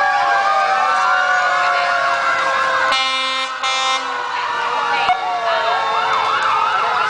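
Several emergency-vehicle sirens from parading fire engines and an ambulance wail together, their pitches sliding up and down and overlapping. About three seconds in, a truck air horn blasts twice, one right after the other.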